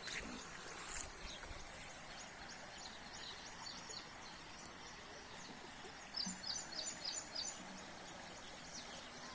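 A small bird calling a quick run of about six short, high chirps about six seconds in, with fainter scattered chirps earlier, over a steady outdoor hiss.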